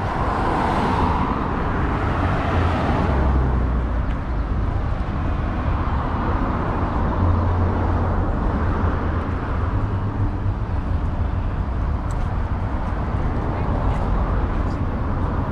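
Road traffic: a steady rumble, with a vehicle passing close in the first three seconds.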